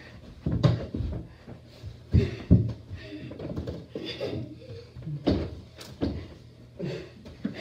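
Irregular thumps and knocks of an indoor kick-around with a beach ball in a hallway: kicks, running feet and the ball striking walls and doors, with faint voices in the middle.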